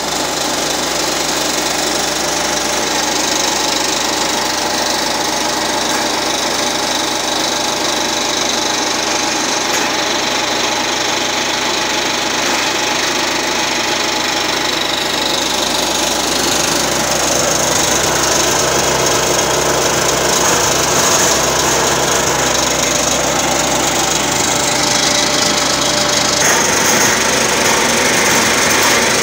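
Homemade belt-driven branch chipper, powered by a small petrol engine, running steadily while branches are fed in and cut into chips: the engine's steady running mixed with continuous cracking and splintering of wood.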